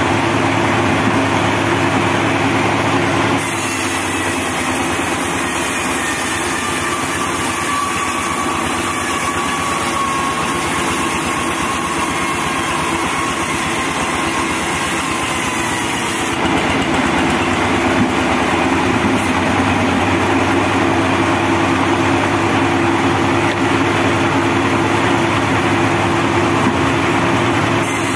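Homemade diesel-driven band sawmill running steadily while its band blade saws through a teak log, a constant mechanical hum of engine and blade.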